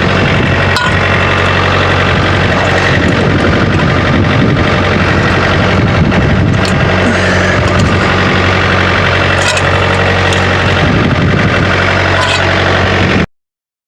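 An engine running steadily at a constant speed, with a few sharp clicks and knocks over it. The sound cuts off abruptly shortly before the end.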